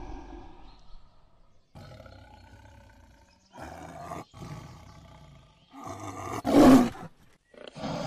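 Tiger growling and roaring in several separate bursts, the loudest about six and a half seconds in.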